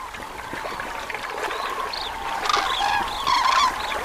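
A flock of common cranes in shallow water: many short overlapping calls, busiest in the second half, over splashing and trickling water as the birds bathe and flap their wings.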